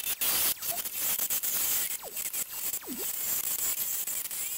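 Benchtop drill press cutting into a metal part clamped in a drill vise: a scraping, hissing cut broken by irregular clicks, with two short falling squeaks from the bit about two and three seconds in.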